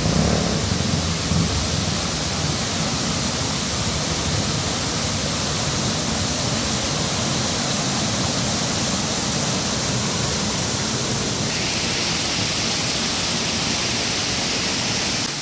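Waterfall rushing: a steady, unbroken wash of falling water that turns a little brighter and hissier about eleven seconds in.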